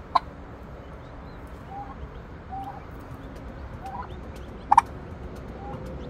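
A brooding turkey hen and her newly hatched poults calling: two short, sharp calls about four and a half seconds apart, with softer brief peeps between them.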